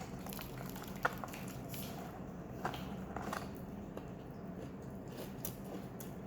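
Biting into and chewing fried chicken, with scattered small crackles and a sharp click about a second in, over a steady low hum.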